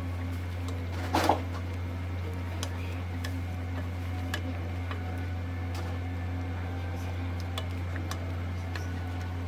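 Steady low machine hum with a short clatter of kitchenware about a second in and scattered light clicks.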